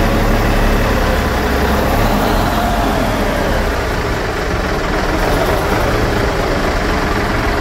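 Cummins N14 six-cylinder marine diesel engine running steadily and loud in the boat's engine room, on a test run after its injection pump elements and injectors were replaced.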